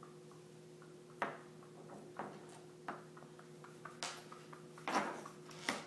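A cat batting at and scuffling with a mini hockey stick: a string of short, light knocks and scuffs, spaced about a second apart, that grow louder toward the end, over a steady low hum.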